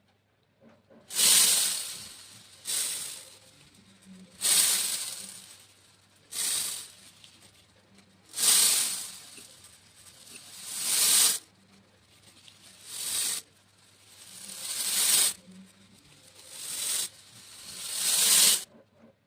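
Small beads pouring out in a rattling hiss, about ten separate pours one after another, each swelling and then trailing off over a second or so, with short pauses between.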